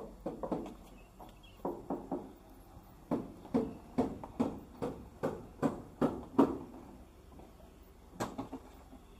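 Footsteps on stone paving and steps, a steady walking pace of about two steps a second, pausing briefly near the end before two more steps.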